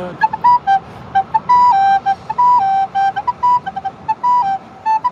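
Yamaha YRS-402B soprano recorder played solo: a short, bright tune of quick tongued notes and a few held ones, hopping mostly between two neighbouring notes.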